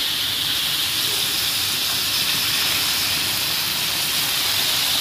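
Battered mushrooms deep-frying in a pan of hot oil, with a steady sizzle.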